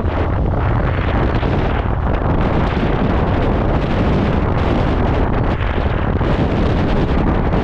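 Steady, loud wind buffeting on the microphone while riding, with deep rumble underneath.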